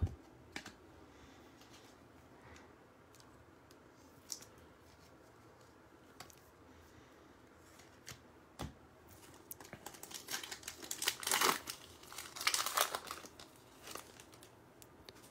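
Foil wrapper of a Panini Prizm basketball card pack crinkling and tearing as it is ripped open, starting a little past halfway and lasting about four seconds. Before that there are a few light clicks and taps of cards being handled.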